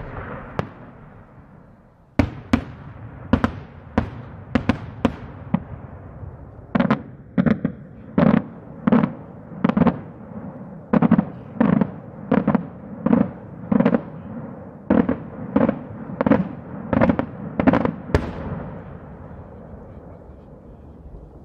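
Daytime fireworks: aerial shells bursting in a long series of sharp bangs, each trailed by an echo. A few scattered bangs come first, then a steady run of about one and a half bangs a second, ending on a loudest bang near the end that rolls off in a fading echo.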